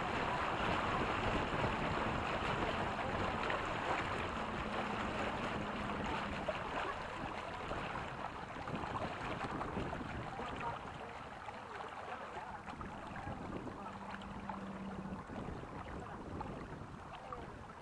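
Water rushing and splashing along a sailing catamaran's hull, with some wind noise, easing off in the second half.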